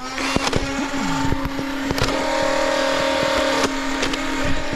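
Motorized Nerf Mega blaster's flywheels spinning with a steady whine, held revved while aiming, with sharp clicks scattered through it.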